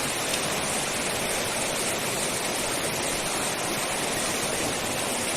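Rushing river water, a steady, even rush with no breaks.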